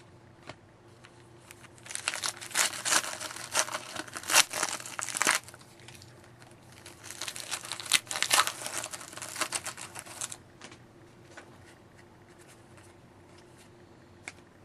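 Hockey card pack wrapper being torn open and crinkled by hand, in two bursts of crackling a few seconds long, with a few scattered light ticks of cards being handled.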